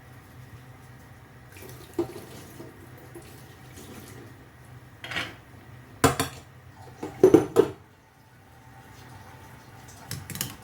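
Kitchen sink work: running water with several sudden clatters of dishes, the loudest about six and seven and a half seconds in.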